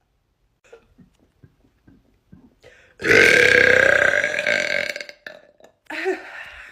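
A woman's long, loud burp, about two seconds long, starting about three seconds in. A brief, quieter vocal sound follows near the end.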